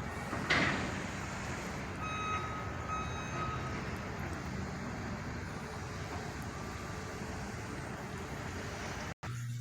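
Steady outdoor traffic and vehicle noise, with a thump about half a second in and a vehicle's reversing beeper sounding a few short beeps about two seconds in.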